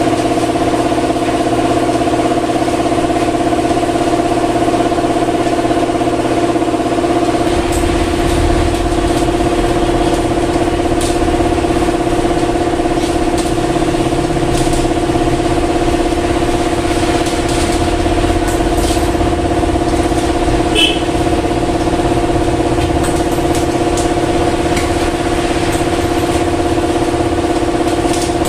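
A steady mechanical hum of unchanging pitch runs throughout. From about eight seconds in, scattered crackles and rustles come from plastic wrapping being cut with scissors and pulled off a new tyre.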